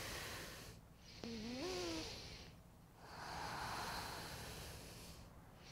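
A woman breathing audibly while holding a twisting yoga pose: a breath about a second in that carries a short rising voiced sigh, then a longer, hissy breath from about three seconds in to near the end.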